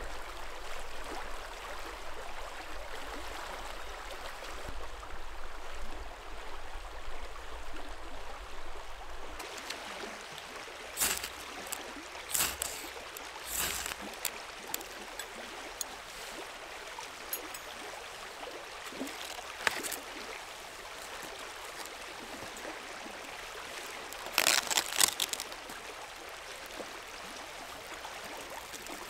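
A river flowing steadily, then close, separate scrapes of a knife working a sheet of birch bark. Near the end comes a quick cluster of harsh scraping strikes, a ferro rod throwing sparks into the bark just before it catches.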